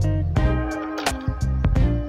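Background music with a steady drum beat and a bass line under sustained pitched notes.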